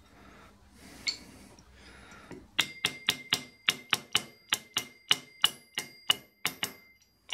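Light hammer taps driving a camshaft timing sprocket home over its tight-fitting dowel drive pin: a quick run of taps, three or four a second with a metallic ring, starting a couple of seconds in and stopping near the end.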